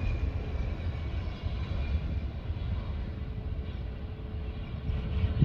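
Airbus A321 landing: a steady low rumble of its jet engines with a faint high whine that fades over the first few seconds as it touches down and rolls out.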